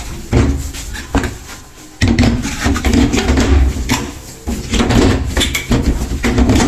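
Top cover of a front-loading washing machine being fitted onto the cabinet: a run of irregular knocks, bumps and scraping rattles as the panel is set down, slid and pressed into place.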